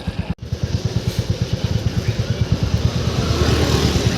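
Royal Enfield Classic 350's single-cylinder engine running under way, beating in an even, rapid pulse. The sound cuts out for an instant about a third of a second in, and a rushing hiss grows near the end.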